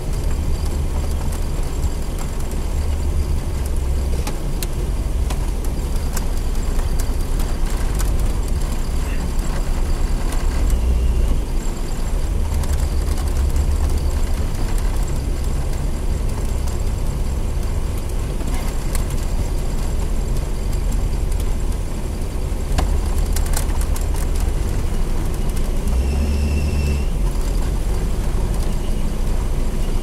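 Engine and road noise of a Pontiac Trans Am–based KITT replica heard from inside the cabin while driving, steady throughout, with a few brief faint high squeaks now and then. The fan belt is making an abnormal noise.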